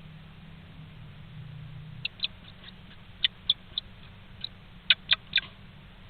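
A bird inside a nest box gives about ten short, sharp, high squeaks in two quick clusters, starting about two seconds in and loudest near the end.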